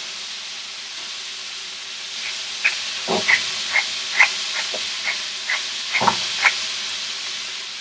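Shrimp sizzling in olive oil and butter in a hot skillet, a steady hiss. From about two seconds in, a pepper grinder twisted over the pan adds a run of small irregular clicks that stop shortly before the end.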